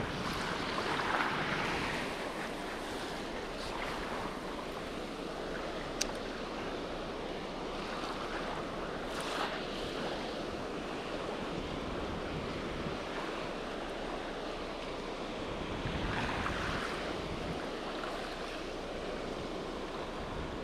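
Small sea waves washing in over a pebble shore, swelling gently twice, with wind on the microphone. A single sharp click about six seconds in.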